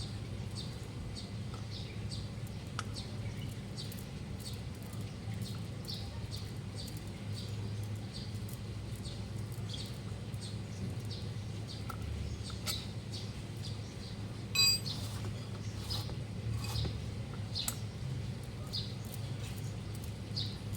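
A small bird chirping repeatedly, with short high downward chirps about once a second over a steady low background hum. About two-thirds through, a single brief ringing ping stands out as the loudest sound.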